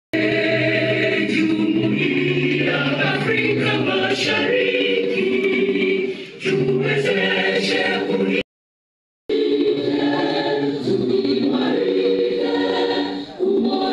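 A choir of many voices singing an anthem in sustained sung chords. The sound cuts out completely for under a second about two-thirds of the way through, then the singing resumes.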